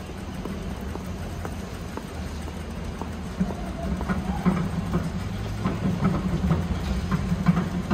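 Melbourne electric tram running on its street track, a low steady hum that grows louder after about three seconds, with scattered clicks and knocks from the wheels and rails.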